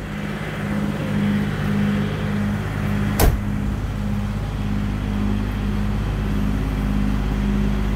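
A car door shutting once with a solid thunk a little over three seconds in, the door of a Ford Maverick (GQ Nissan Patrol) 4x4. Under it runs a steady, low, throbbing hum.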